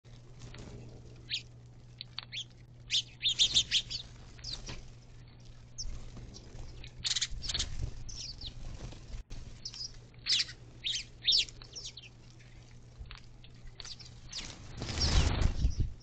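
A flock of house sparrows chirping at a feeder, with many short, high chirps. About a second before the end the whole flock takes off at once in a loud rush of wings.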